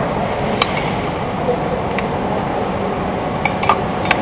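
Light metal clinks of a blade wrench on the arbor nut of a DeWalt circular saw as the nut is tightened during a blade change, with the spindle-lock button held. About five short, scattered clicks over a steady background hum.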